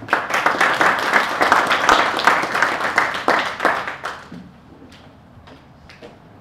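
Audience applauding: dense clapping for about four seconds that quickly dies away, followed by a few scattered knocks.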